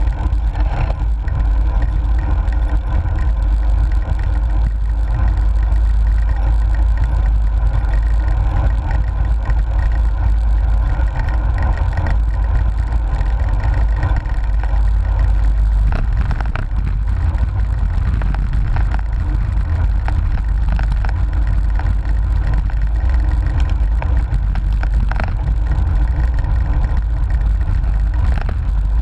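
Steady wind buffeting on a bike-mounted action camera's microphone, with tyre and road rumble from a cyclocross bike being ridden.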